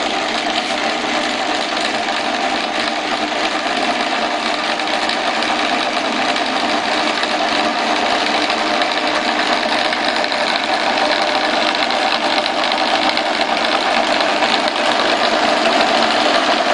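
ТВ-6 school screw-cutting lathe running, with the spindle and chuck turning and the carriage traversing under power feed. Its gear train makes a steady mechanical whir that grows a little louder near the end.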